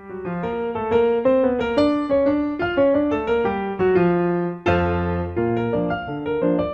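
Background piano music: a melody of quick single notes, several a second, over lower bass notes, with a brief dip a little after the middle before a low note comes in.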